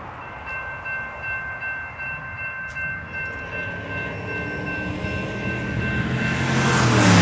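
Railroad crossing warning bell starts ringing steadily as the crossing signals activate and the gates come down. Near the end an approaching train grows quickly louder and becomes the loudest sound.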